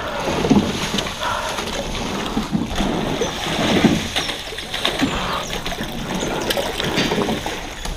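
Water splashing and trickling with scattered knocks, irregular and close, as a magnet on a rope is hauled out of the water.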